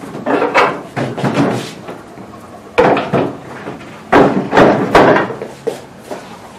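Hollow wooden knocks and thuds as plywood scent-detection boxes are handled and shifted, coming in several clusters, with the loudest group about four to five seconds in.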